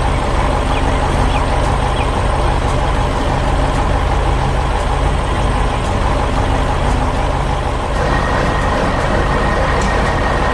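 Heavy truck engine running steadily with a dense, low rumble. A faint steady high tone joins about eight seconds in.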